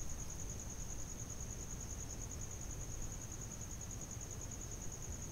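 A steady, high-pitched insect trill that pulses rapidly and never breaks, over faint low background noise.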